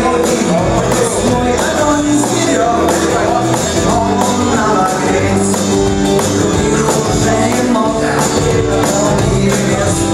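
Rock band playing a song with bass guitar and a steady beat.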